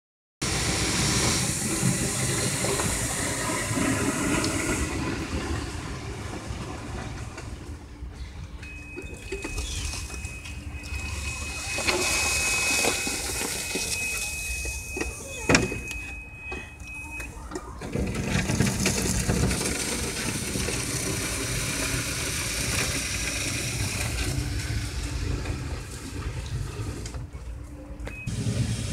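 Golf cart driving slowly while a plywood board on its front plows storm debris (fallen leaves and branches) across asphalt, a steady rushing and scraping noise. A steady high tone sounds for several seconds midway, and there is a single sharp click.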